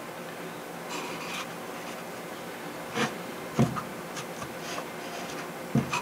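Light scraping and rubbing on balsa wood as epoxy is spread onto triangular stock bracing. Three soft knocks come about three seconds in, half a second later and near the end.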